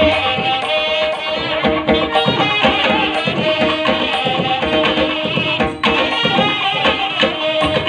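Indian-style music with a hand-drum rhythm under a sustained melodic line. There is a brief dropout just before six seconds in.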